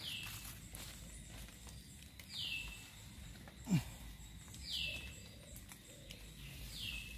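A bird calling over and over, about every two seconds, each call a quick note sliding down from high to lower pitch. About halfway through comes one short, low sound falling in pitch, the loudest moment.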